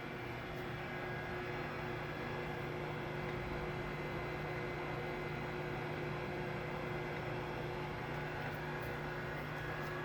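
1977 Mori Seiki MH-3000 engine lathe running: a steady machine hum with several steady tones held throughout.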